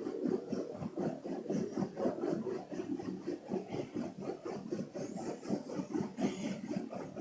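Two men snoring through open mouths: a continuous fluttering snore with no clear pauses, the snores overlapping.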